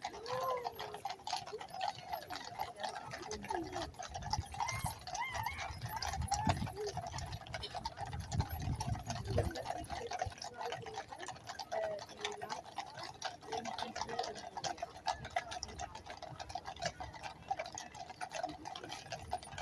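Horses' hooves clopping steadily on the road as mounted guards pass, over a murmur of crowd voices.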